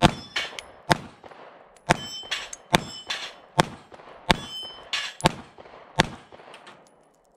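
Taurus GX4 9mm micro pistol firing eight shots at a steady pace, about one a second. Several shots are followed by the clang and ring of steel plate targets being hit.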